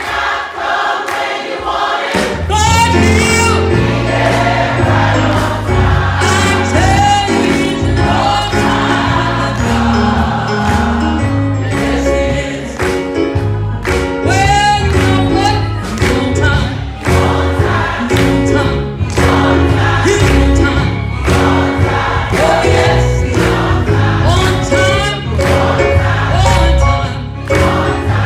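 Gospel choir singing with band accompaniment: a steady bass line and a regular beat. The bass drops out briefly, then comes back in about two seconds in.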